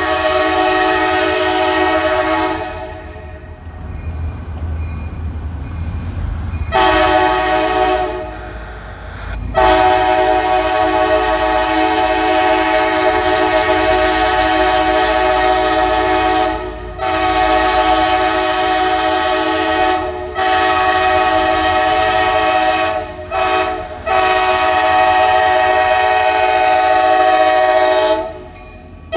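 Diesel locomotive's multi-note air horn sounding a run of blasts, mostly several seconds long with a couple of short toots between, with the low rumble of the passing train in the gaps.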